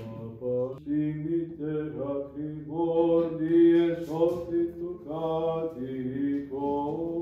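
Greek Orthodox liturgical chant: a hymn sung in Greek, a chanted melody moving between held notes over a steady lower tone.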